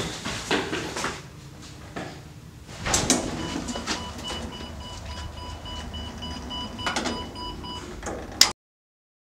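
Knocks and footsteps in a lift cab as its metal swing door is pushed open, with a faint steady high whine in the middle; near the end, one sharp loud bang as the metal lift door slams shut.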